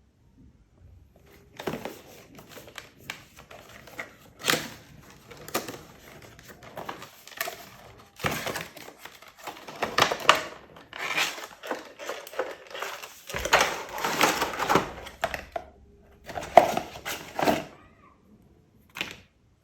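Packaging being handled during an unboxing: the cardboard box and its contents rustling, scraping and knocking, with irregular sharp clicks and crinkling that grow busiest past the middle.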